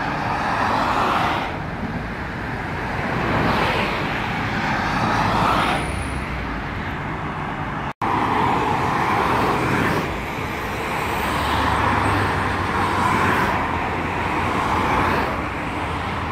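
Expressway traffic: a continuous rush of tyre and engine noise that swells as cars pass below at speed and ebbs between them. It cuts out for an instant about eight seconds in.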